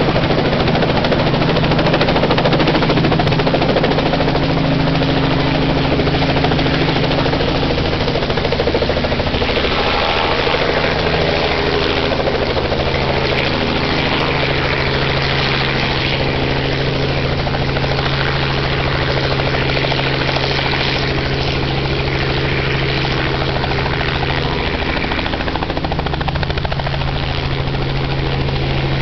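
Small two-bladed helicopter lifting off and hovering low as it moves away, its engine and rotor giving a steady drone.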